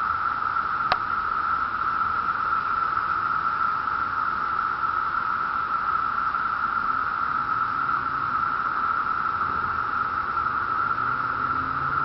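Chorus of 17-year periodical cicadas in the trees: a loud, steady, unbroken whine at one high pitch, with one brief click about a second in.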